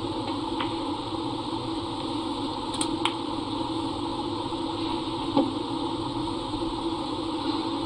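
Snooker balls clicking: two sharp clicks about a quarter second apart, nearly halfway through, as the cue strikes the cue ball and the cue ball hits the black to pot it. A duller single knock follows about two seconds later, over a steady hum of the arena.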